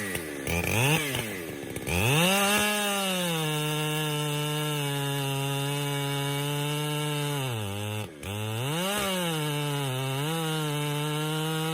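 Chainsaw engine revved to high speed and held there for about five seconds, then easing off about eight seconds in and revving up again.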